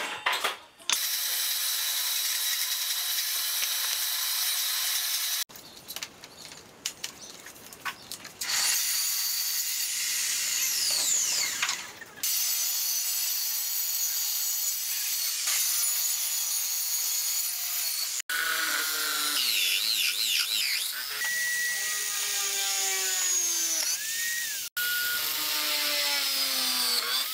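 A string of short, abruptly cut clips of woodworking power tools: a table saw cutting hardwood strips and a drill press boring into a striped hardwood panel. Their motor whines fall in pitch several times.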